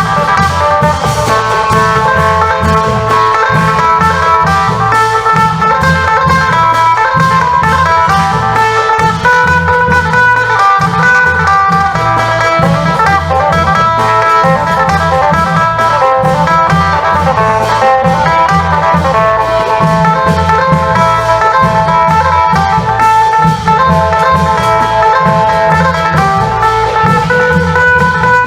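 Isan phin, a plucked three-string lute, playing a continuous melody over the steady repeating rhythm of a klong yao long-drum band.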